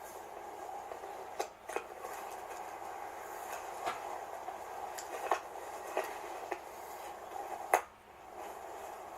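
Scattered small clicks and knocks from objects being handled, the loudest one near the end, over a steady hum.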